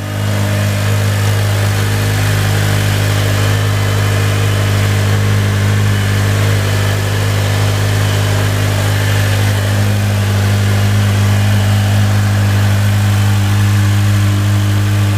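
Car engine running at a steady speed, a constant low drone with no change in pitch or level.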